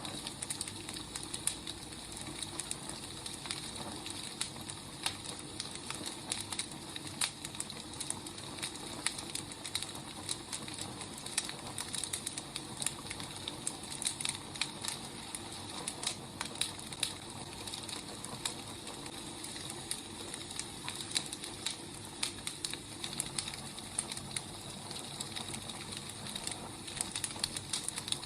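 Firewood burning, with irregular sharp crackles and pops over a steady hiss.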